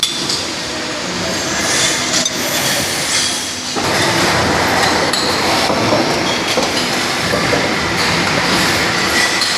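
Industrial machinery running: a loud, continuous mechanical clatter that grows fuller from about four seconds in.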